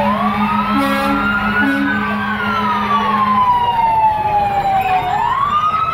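Fire engine siren wailing, its pitch rising over about two seconds, falling slowly for about three, then rising again near the end. A steady low drone runs under it for the first half.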